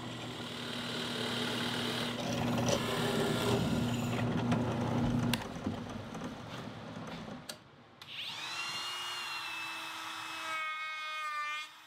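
Drill press running as a 3/4-inch Forstner bit bores a drainage hole through a wooden board, a steady motor hum with cutting noise lasting about five seconds. After a short gap, a handheld router starts up with a rising whine and runs steadily, its tone changing near the end.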